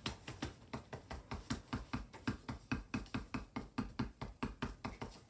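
Marker working rapidly against paper, in quick even strokes of about six a second.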